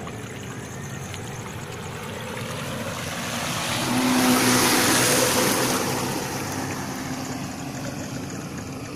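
RC model Sunseeker yacht's twin brushed 795 electric motors and propellers running at speed, with the hiss of its wake, as the boat passes close by. The sound grows louder, peaks about four to five seconds in, then fades as it moves away.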